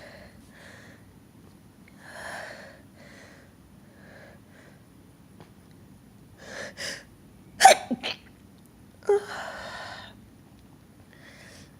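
A person sneezing. Soft breaths and sniffs lead into two quick gasping inhales, then a sharp loud sneeze just before eight seconds with short catches after it. A second sneeze a second later trails off into a breathy exhale.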